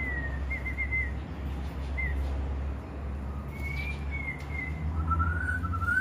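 Short, wavering whistled notes: a brief phrase at the start, a single note about two seconds in, another phrase around four seconds, and a lower, longer wavering whistle from about five seconds on, over a steady low hum.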